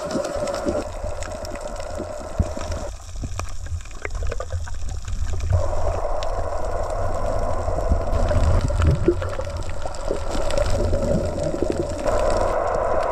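Underwater sound of a night dive heard through the camera housing: steady water rush with bubbling and faint scattered clicks. The bubbling stops for about two seconds a few seconds in.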